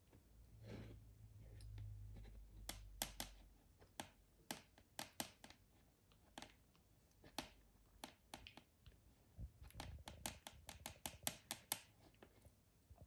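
A cockatoo chewing peas: its beak makes a string of faint, sharp clicks and crunches, irregular at first and bunching into a quick run about ten to twelve seconds in.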